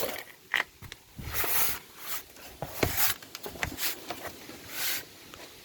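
Irregular scuffing, rustling and a few sharp clicks and knocks as a person crawls under a van, with short hissy bursts that could be breath or clothing.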